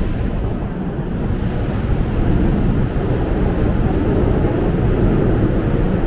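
Steady city street noise, a dense low rumble with no distinct event standing out.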